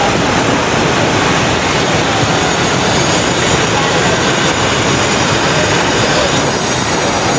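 Steady, loud rushing roar of a swollen river in flood.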